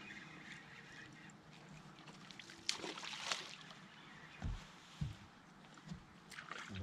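Faint water lapping and sloshing against a fishing boat's hull, with a short splash about three seconds in and a few dull knocks on the boat after it.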